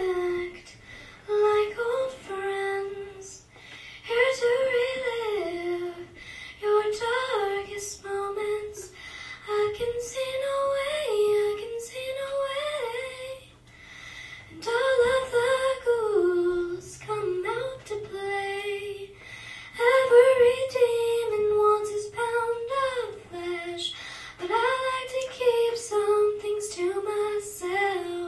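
A young girl singing a solo song into a microphone, one voice in phrases of a few seconds with short pauses between them and no instruments heard.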